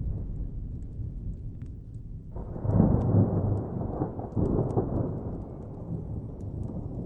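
Thunder: a low, steady rumble, then a sudden louder roll of thunder a little over two seconds in that swells twice and fades back to the rumble. Sparse sharp crackles from a wood fire tick throughout.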